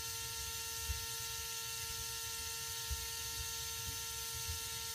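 Small electric fan motor salvaged from a remote-control helicopter, running steadily on a transformer with a loud, even electric whine of several steady tones.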